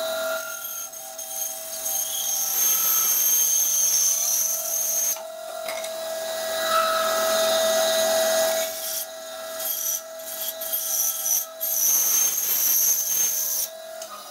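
A small electric bench saw running with a steady hum, its thin blade cutting a wooden strip to round off its corners. The cutting noise drops away briefly several times as the piece is fed and turned.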